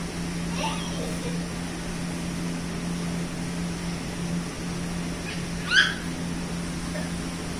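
Room air cooler running steadily, its fan motor giving a low hum under a wash of blowing air. A toddler gives a brief vocal sound about half a second in and a short, louder high squeal near six seconds.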